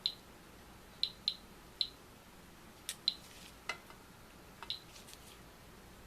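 Geiger counter clicking at an irregular rate, about ten short chirping clicks, as radiation is measured while lens elements are checked for thorium dioxide.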